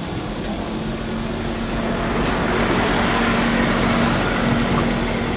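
Twin-engine jet airliner's engines at takeoff power as it climbs away: a steady rushing noise with a low hum, swelling to its loudest about four seconds in and easing slightly near the end.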